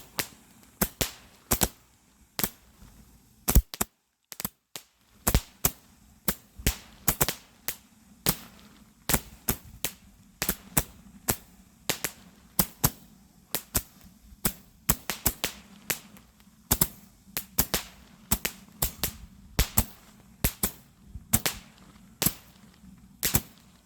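Fireworks going off as a long run of sharp, separate cracks, about one to three a second at uneven spacing, with a brief gap about four seconds in.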